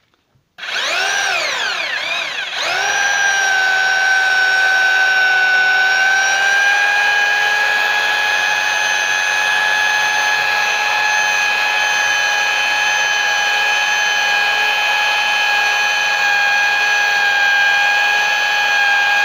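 Electric hammer drill with a masonry bit drilling into a brick wall. The motor is blipped up and down twice, then runs at a steady high whine. The bit makes little headway, which the user puts down to moisture inside the brick.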